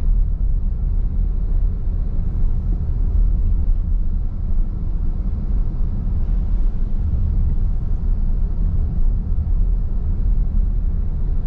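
A steady, loud low rumble that runs without change.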